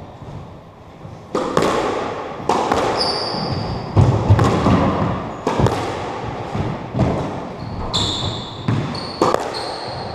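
Squash rally in an echoing court: sharp ball and racket impacts about every one to one and a half seconds, starting a little over a second in, with a few short, high squeaks of court shoes on the wooden floor.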